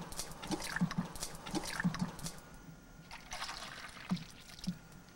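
Coffee poured from a coffee pot into a foam cup, splashing and trickling in the second half. It is preceded by a series of light thumps and clicks.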